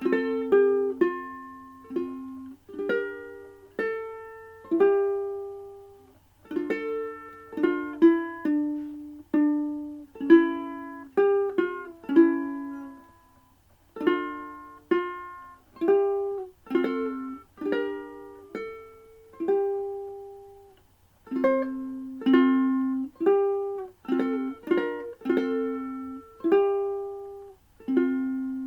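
Solo ukulele playing a slow hymn melody with plucked chords, each note decaying, in phrases with short breaks between them, the last chord left ringing near the end.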